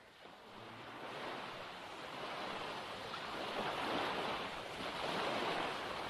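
Sea waves washing, fading up from faint over the first couple of seconds and then holding steady with slow swells.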